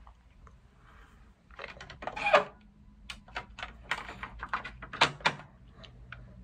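Hard plastic clicks and rattles from a wall-mounted portable emergency flashlight being handled in its plastic holder. It is a run of sharp clicks lasting about four seconds, with two louder knocks, one about two seconds in and one about five seconds in.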